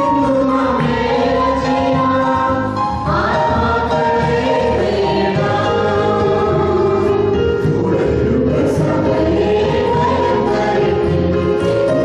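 Mixed group of two women and two men singing a Christian song together into handheld microphones, several voices holding long notes in harmony.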